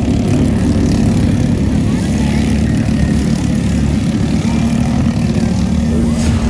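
Racing kart engine running hard at speed, heard from on board the kart, a steady buzzing engine note.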